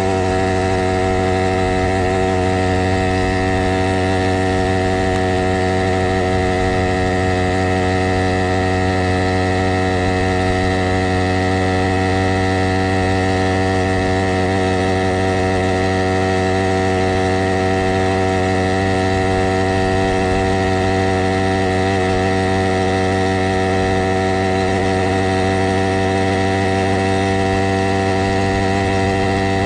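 Stihl MS460 chainsaw's single-cylinder two-stroke engine, mounted on a motorized bicycle, running at a steady cruising throttle: an even, unchanging drone that holds one pitch throughout.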